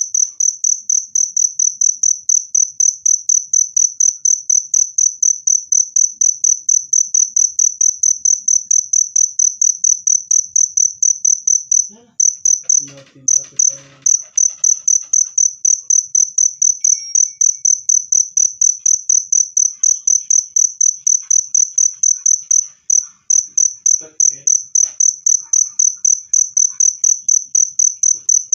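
A cricket chirping loudly and shrilly in rapid, even chirps, breaking off briefly twice.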